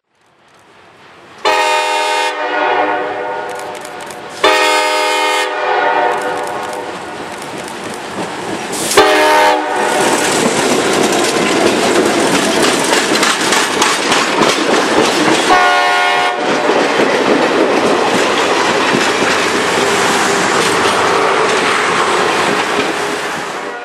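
RJ Corman diesel locomotive sounding its multi-note air horn in two long blasts, a short one and a long one, the grade-crossing signal. From about ten seconds in, the passenger cars roll close past with a steady noise of wheels on the rails.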